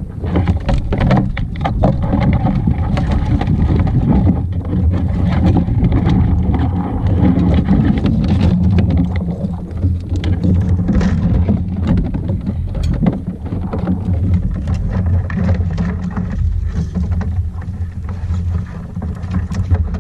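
Water splashing and slapping around a kayak, with many small drips and splashes, over heavy wind buffeting the microphone.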